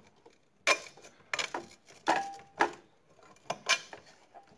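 Metal clinks and knocks from a projector ceiling-mount bracket's steel plate and its bolts and nuts being worked loose and handled, about seven separate knocks, one about two seconds in leaving a brief ring.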